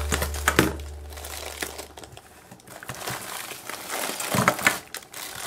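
A clear plastic glove packed with water beads crinkling and crackling as it is squeezed, with scattered clicks, louder about four and a half seconds in as the beads spill out into the bowl.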